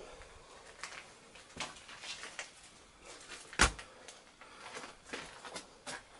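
Scattered footsteps and light knocks, irregular and fairly quiet, with one louder, deeper thump about three and a half seconds in.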